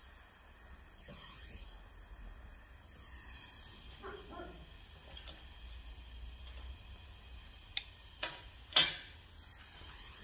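Faint steady hiss of an oxy-gas torch flame, then three sharp metallic clicks in quick succession near the end, the last the loudest, as steel pliers are laid down on a steel workbench.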